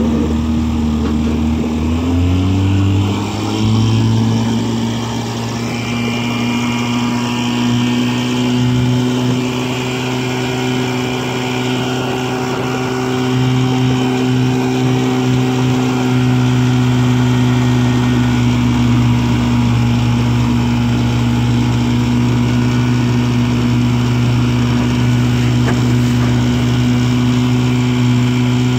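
1958 Johnson CD-15 5.5 hp two-stroke twin outboard motor throttling up, its pitch rising over the first few seconds, then running steadily at high throttle.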